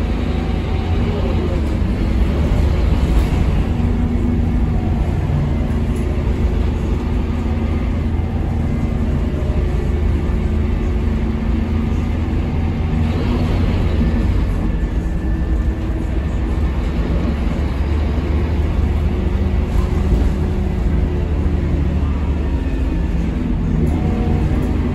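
Scania K230UB bus's rear-mounted Scania DC9 five-cylinder diesel running under way, heard from the back of the cabin: a loud, steady low rumble with engine tones that rise and fall as the bus changes speed, mixed with road noise. A brief hiss rises about thirteen seconds in.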